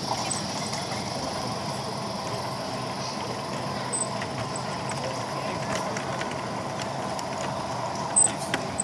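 16mm-scale narrow-gauge model diesel locomotive running with a train of wagons: a steady whine from its motor and gears over wheels running on the track, with a few sharp clicks, against hall chatter.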